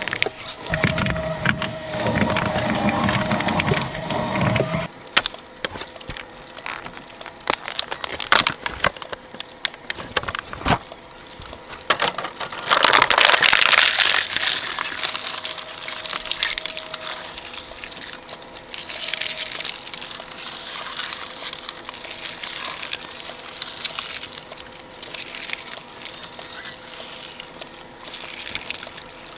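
Shredder running with a steady motor hum, crunching and cracking through toys in loud bursts about a second in and again around halfway, with scattered sharp cracks between.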